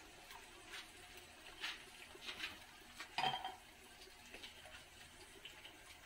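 Pork simmering in liquid in a covered pan, with faint bubbling and scattered soft pops, and a short clink just over three seconds in.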